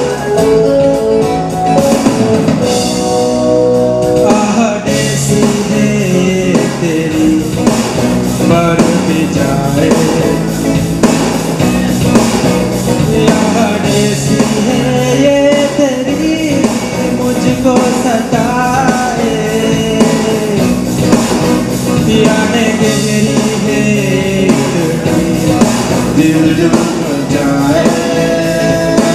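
A man singing into a microphone over instrumental music accompaniment. The music opens with a steady instrumental intro, and the voice comes in about five seconds in.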